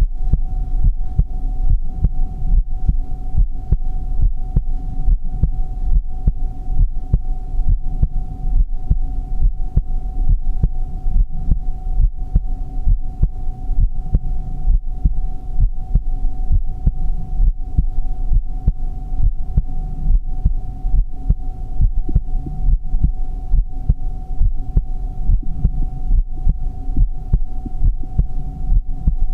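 Heartbeat, beating steadily and evenly over a continuous low hum.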